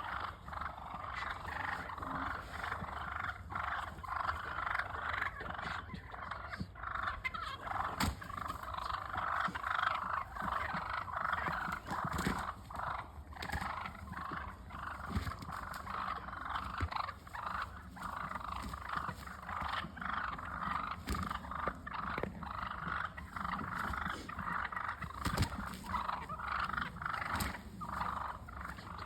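Several wild turkeys calling close by in a continuous chatter, with many short sharp notes throughout.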